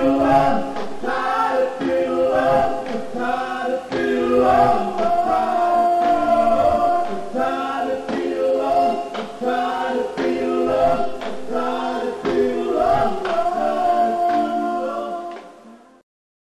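Male vocal group singing in harmony. The singing fades out near the end.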